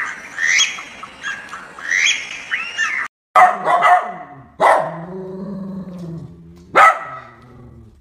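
A bird calling in repeated short arched notes. About three seconds in, a dog barks sharply three times, with a low drawn-out vocal sound between the second and third barks.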